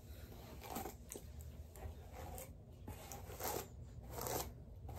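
Hairbrush strokes through long hair: a series of soft, brushy swishes, about one a second.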